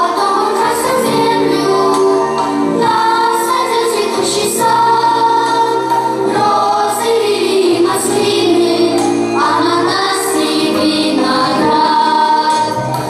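A choir singing a song with instrumental accompaniment, in long held notes.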